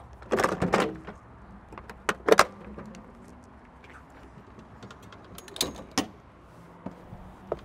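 Cessna Citation X airstair cabin door being opened by hand: a loud clattering clunk about half a second in as it releases and swings down, two sharp knocks around two seconds in, and two more clunks a little after five seconds as the folding steps are pulled out.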